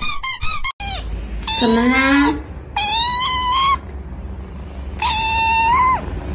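A quick run of short, high squeaks, then after a sudden break three drawn-out, high-pitched kitten meows, each about a second long, over a low background hum.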